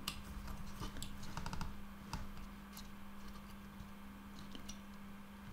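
Faint scattered clicks and taps of multimeter test probe tips being moved and set down on a circuit board's solder points, a few in quick succession about a second in, over a steady faint low hum.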